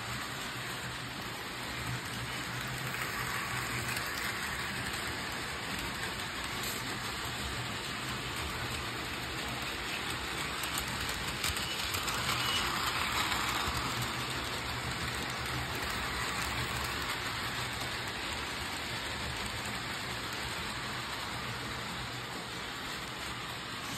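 Bachmann HO-scale model trains running on plastic-roadbed sectional track: a steady rattle of small wheels on the rails with a faint motor hum. It swells louder twice, most of all about halfway through, as a locomotive passes close.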